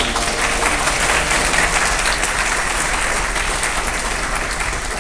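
Audience applauding steadily, with the last held notes of the music dying away in the first moment.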